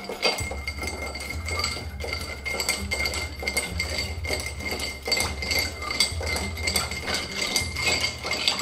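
A long bar spoon stirring ice cubes in a cut-crystal mixing glass: continuous quick clinking of ice and spoon against the glass as the drink is chilled.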